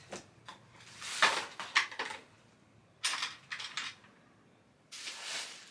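Small items being sorted by hand on a vanity table: light clicks, clatter and rustling in a few short bursts, with quiet gaps between.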